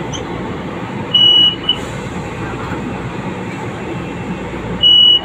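Inside a light-rail train car running with a steady rumble. A loud, high-pitched electronic beep sounds about a second in, a short second one follows, and another beep starts near the end.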